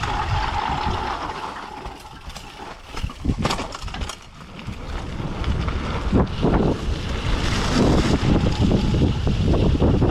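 Wind buffeting an action camera's microphone, with tyre rumble and rattling from a bike descending a rough forest trail at speed. It eases off for a few seconds near the middle, then grows louder and choppier again.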